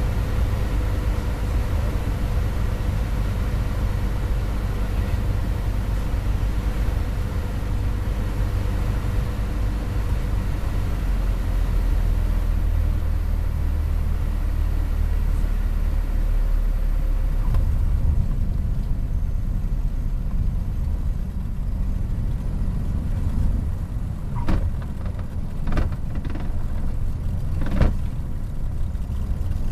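Piper PA-38 Tomahawk's four-cylinder Lycoming O-235 engine and propeller droning steadily in the cabin through final approach and landing, the sound thinning out about 18 seconds in. Several short knocks come near the end as the aircraft rolls along the runway.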